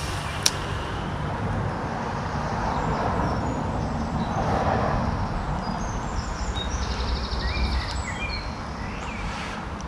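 Outdoor rumble and noise, like wind on the microphone, with small birds chirping and a rapid trill near the end. A single sharp click about half a second in.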